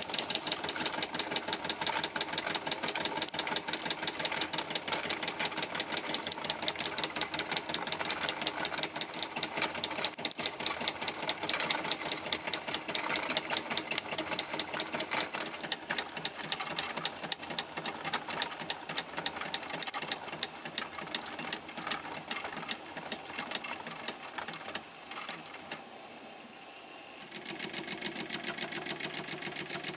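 Wilesco D430 Lokomobile live steam model engine running, its cylinder and flywheels making a fast, even mechanical beat. The beat fades about 25 seconds in, and a steadier, smoother running sound follows near the end.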